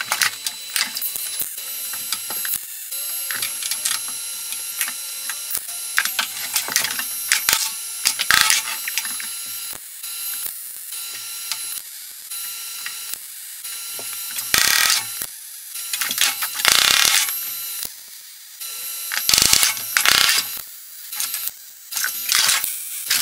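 MIG welder arc crackling in repeated short bursts with pauses between: stitch and plug welding a steel reinforcing plate onto the car's sheet-metal floor.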